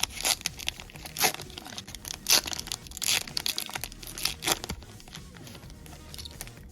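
A foil trading card booster pack wrapper being torn open and crinkled in the hands, in irregular sharp crackles.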